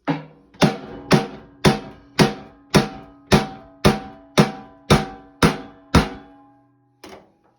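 A hammer striking the washing machine's drum basket and shaft about twelve times in a steady rhythm, roughly two blows a second, each blow leaving a metallic ring: pounding the old basket with its broken spider loose from the tub.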